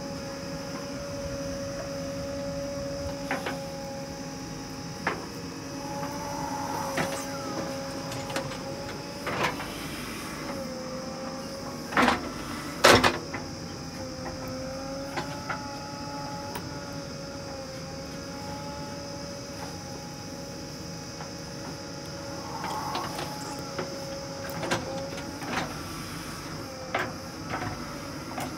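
JCB 3DX backhoe loader's diesel engine running steadily under hydraulic load as the backhoe digs soil, its pitch wavering with the work. Sharp clanks and knocks from the bucket and arm are scattered throughout, the loudest two close together about halfway through.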